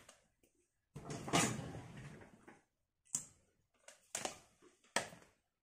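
Makeup products being handled on a table: a rustle of rummaging about a second in, then several short, sharp clicks and taps.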